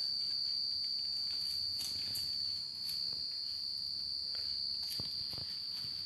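A steady high-pitched tone held on one pitch throughout, with a few faint taps behind it.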